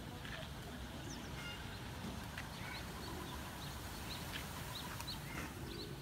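Short bird chirps scattered throughout over a steady low outdoor rumble, with a few faint sharp clicks.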